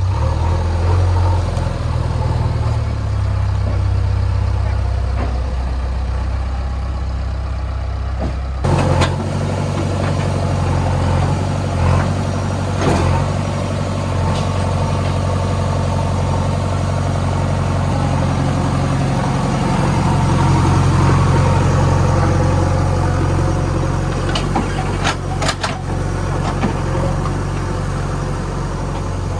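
JCB 3DX backhoe loader's diesel engine running steadily, its note shifting about a third of the way in, with a few sharp knocks at intervals.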